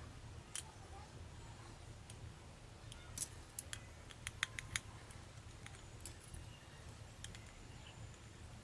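Small sharp clicks and taps of a compact camera's plastic housing and small hand tools being handled during disassembly. There is one click near the start, a quick cluster of several between about three and five seconds in, and one more later, over a faint steady low hum.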